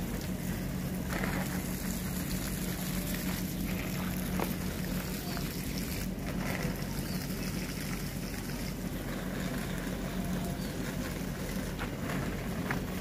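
Water spraying steadily from a garden hose onto leafy potted plants, with a constant low hum underneath.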